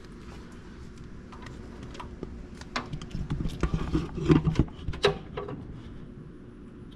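Scattered clicks, knocks and rustling of someone moving about and handling things, loudest from about three to five seconds in, over a steady low hum.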